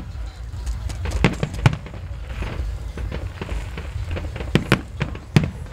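Aerial firework shells bursting in a display: irregular sharp bangs and cracks, several close together about a second in and again near the end, over a steady low rumble.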